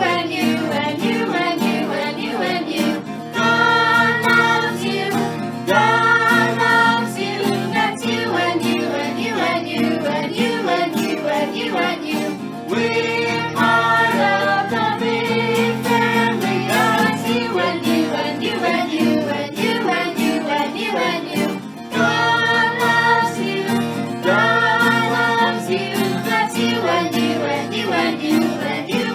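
Children singing a song together, accompanied by an acoustic guitar.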